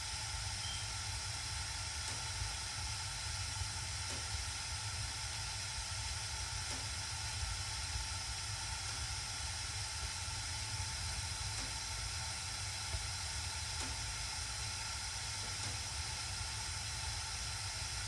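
Gas furnace burners running with a steady hiss and low rumble, with no circulation blower heard: the owner believes the blower has quit while the burners fire.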